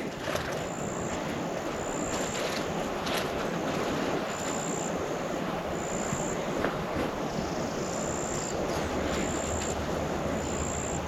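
Steady rushing outdoor background noise, with a short, high-pitched insect call repeating about once a second.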